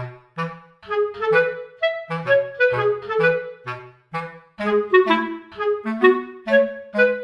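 Instrumental background music: a melody of short, quickly fading notes over a moving bass line, at a steady tempo.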